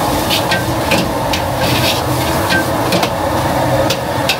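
Stir-frying in a wok: a metal ladle scraping and knocking against the wok about twice a second over a steady sizzle of frying food.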